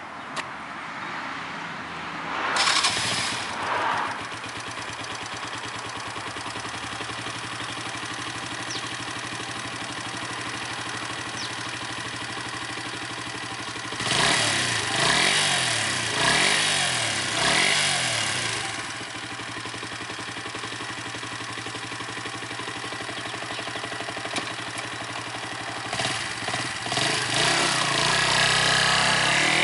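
The oil-cooled 125 cc engine of a 2001 Hyosung Cruise II 125 motorcycle is started and catches with a brief rev about three seconds in, then idles steadily. About halfway through it is blipped up and down several times, settles back to idle, and revs up again near the end.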